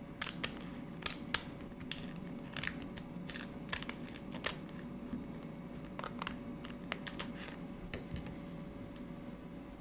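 Kitchen shears snipping through the top of a raw lobster tail's shell: a run of irregular crunching snips and clicks that stops about seven and a half seconds in.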